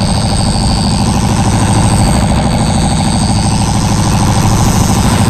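Fishing boat's diesel engine running steadily, loud and close, with a fast, even low throb.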